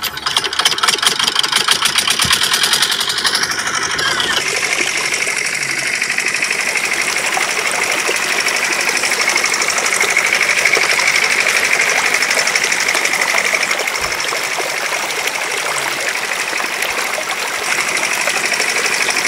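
Miniature toy diesel-engine water pump running with a fast, even mechanical rattle. About four seconds in the sound changes and settles into a steady buzz.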